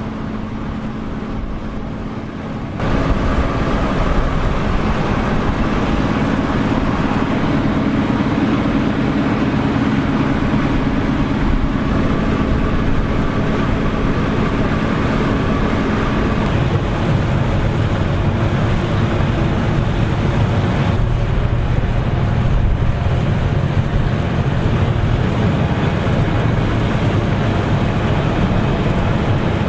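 Massey Ferguson IDEAL 9T combine harvester working in wheat: a steady drone of engine and threshing machinery. It gets louder about three seconds in and drops to a lower hum around the middle.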